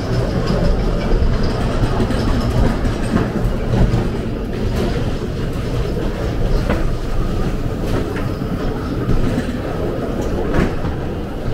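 Ghost-train ride car rumbling steadily along its track, with a few sharp knocks and clatters from the wheels on the rails.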